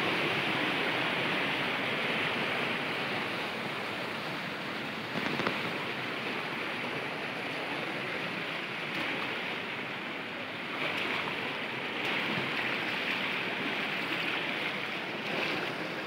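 Fast-flowing river water rushing steadily over rocks, with one brief knock about five seconds in.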